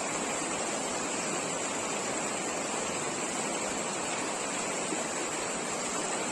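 Steady rushing of flowing water, even and unbroken, with a faint steady high-pitched note above it.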